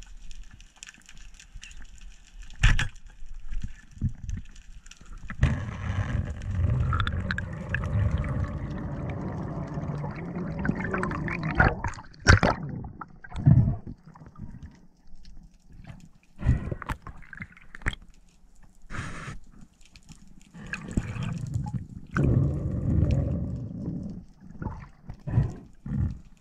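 Underwater sound on a diver's camera: rushing, gurgling water with scattered knocks and clicks against the camera housing, and one sharp crack about halfway through.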